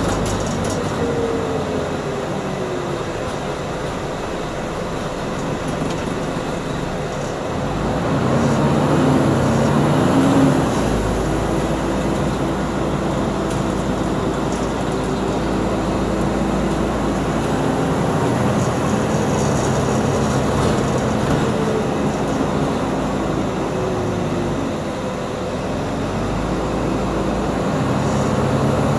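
Scania East Lancs OmniDekka double-decker bus heard from inside the passenger saloon while under way: a steady engine and driveline drone with whining tones that glide up and down. The drone swells to a peak about ten seconds in, then drops back.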